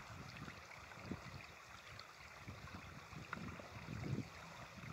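Light wind on the microphone, with small river waves lapping on a rocky shore.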